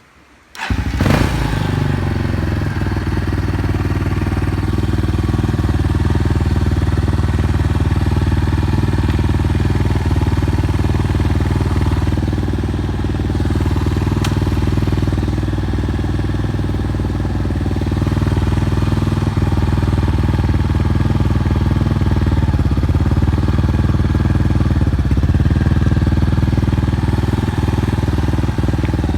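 Yamaha Tricker (DG10J) single-cylinder engine with a Dirt Freak Delta full exhaust starting about a second in, then idling steadily. It runs without any unusual noises.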